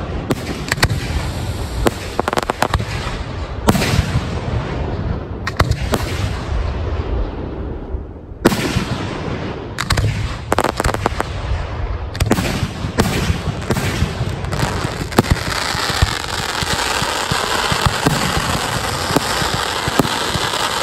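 Aerial fireworks shells bursting overhead, one sharp bang after another with low rumbling echoes. From about fifteen seconds in, the bursts merge into a dense, continuous crackling barrage.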